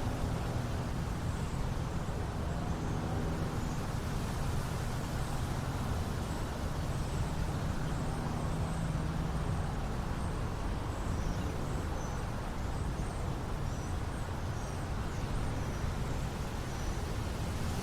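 Small-town outdoor ambience: a vehicle engine running with a low hum, strongest in the first half and easing off after about ten seconds, over a steady bed of wind noise. Faint, short high chirps come and go throughout.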